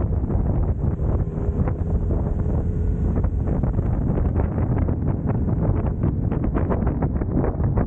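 Wind buffeting the microphone of a Suzuki Katana motorcycle on the move: a steady low rush broken by rapid, gusty thumps that hide the bike's own running.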